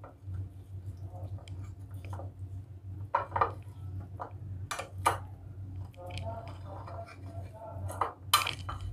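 Steel spoon clinking and scraping against a glass bowl while flour-coated paneer cubes are stirred in a thick coating batter, with a few sharper clinks about three, five and eight seconds in. A steady low hum runs underneath.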